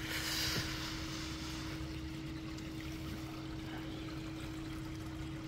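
Steady low hum with one constant tone, under a continuous trickle of water from running koi pond equipment. The water sounds a little brighter in the first second.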